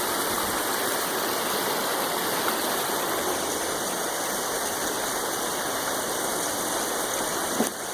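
River water rushing steadily past the bridge, a continuous even roar of flowing current.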